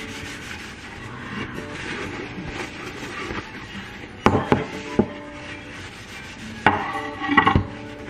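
Paper towel rubbing over a wooden chopping board, followed by a handful of hard knocks in two clusters, about four seconds in and again near the end, as the board is set down on the counter and glass jars and bottles are placed on it.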